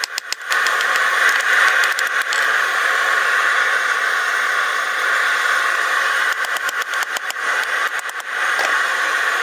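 Hammer blows on a hot railroad spike on an anvil: a quick run of strikes right at the start and another from about six seconds in, over a steady rushing noise.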